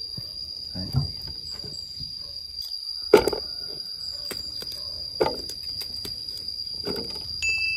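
Slices of boiled bamboo shoot handled and dropped into a clear plastic jar, giving a few soft knocks and rustles; the sharpest comes about three seconds in. Behind them runs one steady high insect drone, typical of crickets.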